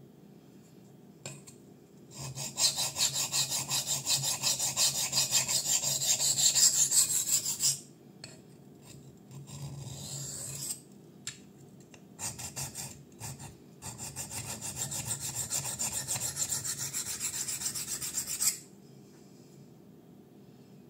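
Steel blade of a Kizer Fighter folding knife (154CM steel) rubbed rapidly back and forth on a well-worn DMT Extra Coarse diamond sharpening plate: a fast, rhythmic scraping rasp in two long runs with lighter strokes between them. The first run is the loudest, and the second stops suddenly near the end. This is the coarse first stage of sharpening, taking a lot of metal off the edge.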